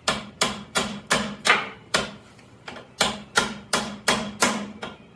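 Hammer blows driving a shaft through the shift fork of a Ford reverser transmission: about a dozen sharp metal-on-metal strikes, each with a short ring, at roughly three a second, with a brief pause a little past two seconds in.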